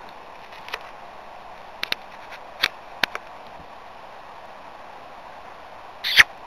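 A steady background hiss with a scatter of short, sharp clicks in the first half and a louder crackle near the end.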